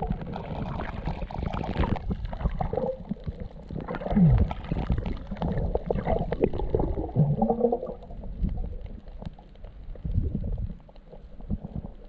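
Muffled underwater noise picked up by a submerged camera: low rumbling and gurgling of moving water with scattered clicks and knocks. A short low tone falls in pitch about four seconds in.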